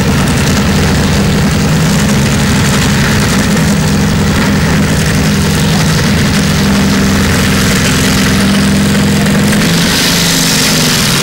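Modified pulling tractor's engine running loud and steady at idle while it sits hooked to the sled before its pull, the pitch shifting near the end.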